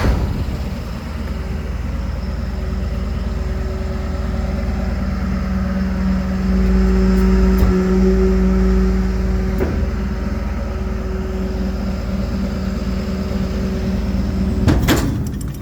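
DAF 55 garbage truck running with a steady hum that grows louder for about three seconds in the middle. A sharp bang comes at the start and a metallic knock near the end.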